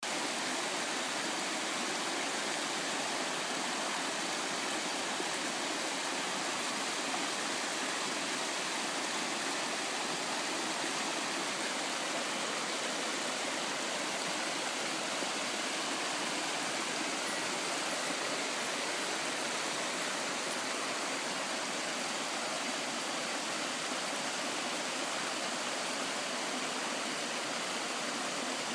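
Yudaki Falls' water rushing steadily: an even, unbroken hiss with little deep rumble.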